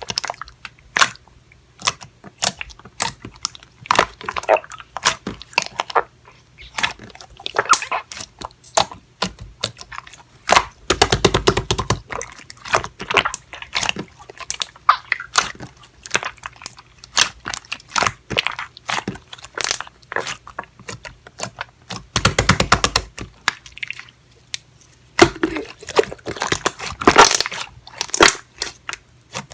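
Slime being squished and pressed by hand, giving irregular sticky clicks and pops. It breaks into two spells of rapid crackling, about a third of the way in and again about two-thirds through.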